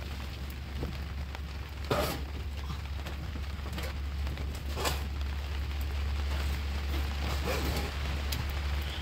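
Steady heavy rain falling, with a low hum underneath and a few short sharp knocks about two and five seconds in.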